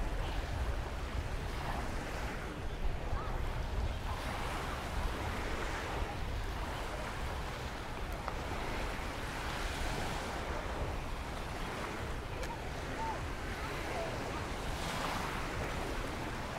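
Gulf surf washing onto the beach, swelling and fading every few seconds, with wind rumbling on the microphone.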